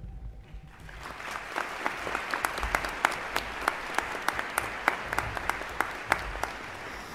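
Audience applauding, a dense patter of hand claps that builds up over the first second or so and eases slightly near the end.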